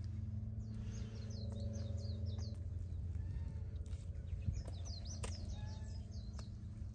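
A small songbird twittering: two quick runs of short, high, falling chirps, each lasting a second or two, over a steady low hum.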